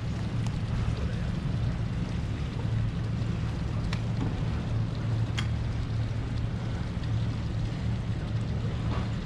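Steady low drone of boat engines running at idle, with a couple of sharp clicks about four and five and a half seconds in.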